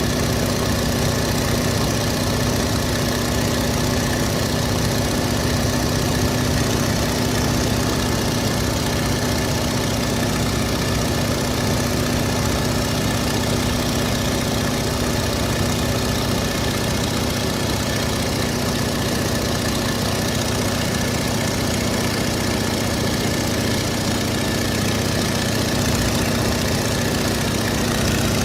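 Steady drone of a Stearman biplane's radial engine and propeller in flight, heard from the open cockpit together with the rush of the airstream. The level holds even, with no change in engine speed.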